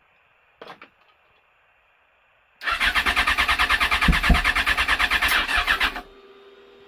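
Yamaha FZ6 motorcycle's starter cranking its inline-four engine in a fast, even churn for about three seconds and then stopping, without the engine catching: the bike won't start. A short click comes first, and a faint steady hum is left after the cranking stops.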